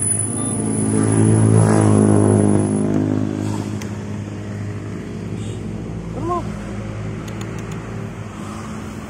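A motor vehicle's engine passing on the road, growing to its loudest about two seconds in and then slowly fading away.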